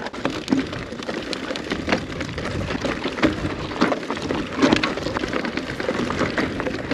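Mountain bike rolling down a rough, stony track: a dense, irregular crackle of tyres on loose rock and gravel, with small clicks and rattles.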